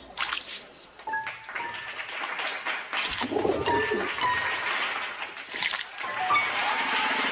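Cartoon bird cooing about three and a half seconds in, among short high chirp-like tones, over music.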